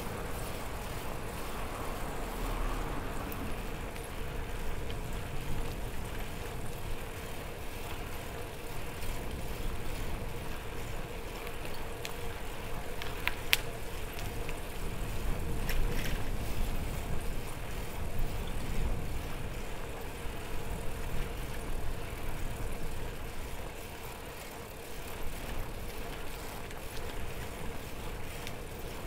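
Steady road and tyre noise from a mamachari city bicycle being ridden, with a low rumble underneath and a faint steady hum. Two sharp clicks come about halfway through.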